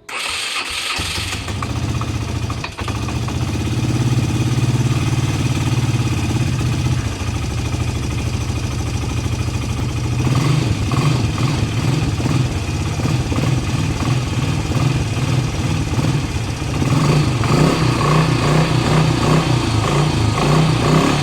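ATV engine started with the CVT variator cover removed, running and revved up twice. No rustling is heard from the variator, which the owner takes as a sign that the bearing in the variator cover has failed.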